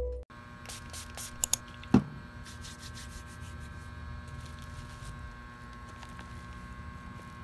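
Quiet room tone with a steady electrical hum, after a music track cuts off at the start. A few light clicks come about a second and a half in, and a soft knock at about two seconds.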